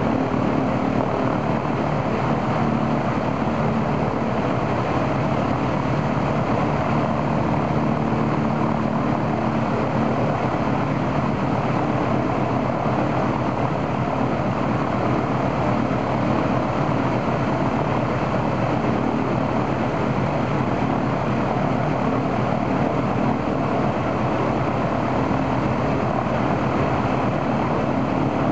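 The right-hand Shvetsov ASh-82T 14-cylinder radial engine of an Ilyushin Il-14 running steadily with its propeller turning, on a ground run-up to test it after its oil cooler was replaced.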